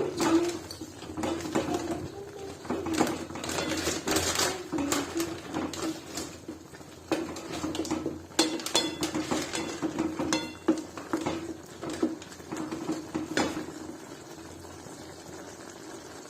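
A cooking utensil clinking and scraping against a metal kadai as Maggi instant noodles are broken up and stirred in their bubbling broth. The clinks stop about three seconds before the end, leaving only the steady simmer.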